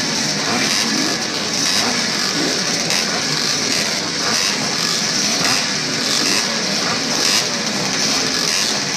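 A pack of classic two-stroke motocross bikes running and revving together on the start line, many engines overlapping into one steady, dense din while waiting for the start.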